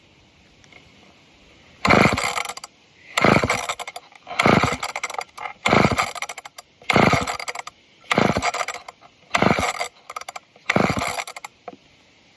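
Old two-stroke chainsaw being pull-started eight times in a row, about once a second, each pull of the recoil starter cranking the engine without it catching. The owner suspects it is having a hard time pulling fuel through a dirty filter.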